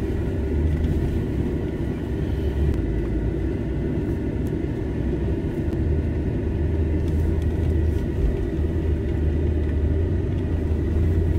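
Nissan Y62 Patrol's 5.6-litre V8 and drivetrain running at low speed as the vehicle crawls over a rocky track, heard as a steady low rumble from inside the cabin, with a few light knocks.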